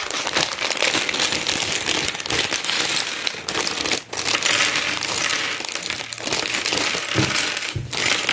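Clear plastic LEGO parts bag crinkling as it is handled, opened and shaken, with a couple of knocks near the end as bricks tip out onto a wooden table.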